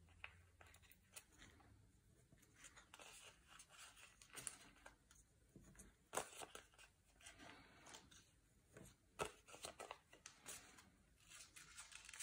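Faint crackling and rustling of small white sticky dots being peeled from their backing sheet and pressed onto paper, in scattered short crackles and taps.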